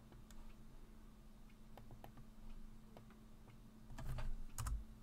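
Computer keyboard keystrokes and clicks: a few faint scattered clicks, then a short cluster of louder keystrokes about four seconds in, over a faint steady hum.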